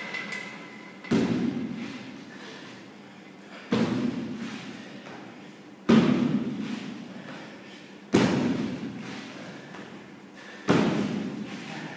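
Feet landing on a wooden plyo box in repeated box jumps: five heavy thuds, about one every two and a half seconds, each dying away with a short echo.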